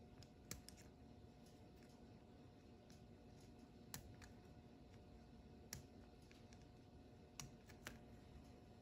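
Faint, scattered small clicks, about six at uneven intervals, as a thin pointed tool picks at the underside of a 1/64 diecast model car's chassis, over a low steady hum.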